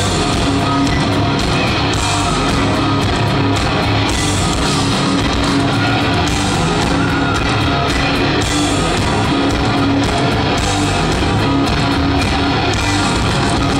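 Rock band playing live, loud and steady, with electric guitar, heard from within the audience.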